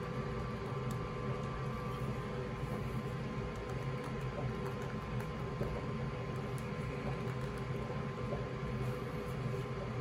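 Steady room hum with a few faint ticks.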